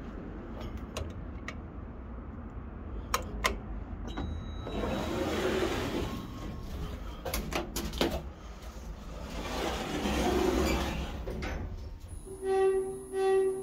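Glass-panelled sliding doors of a 2011 Otis Gen2 machine-room-less traction elevator sliding open with a rumble, a few clicks and footsteps as someone steps in, then the doors sliding shut. Near the end a steady high tone starts and three short pitched tones sound in quick succession.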